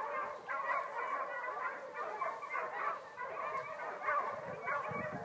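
Several dogs barking and yelping at once, a continuous overlapping din with no let-up.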